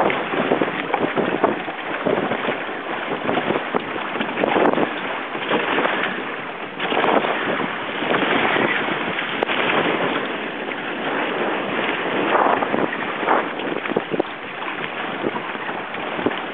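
Wind buffeting the microphone over the rush and splash of water along the hull of a sailing outrigger canoe under way, rising and falling in uneven surges.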